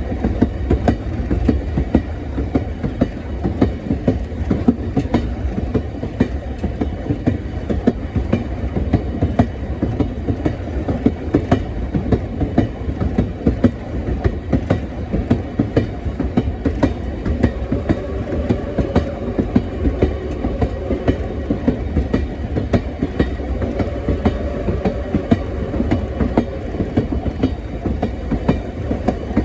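Train rolling along the track with a steady rumble and a constant run of wheel clicks over the rails. A faint steady tone comes in twice in the second half.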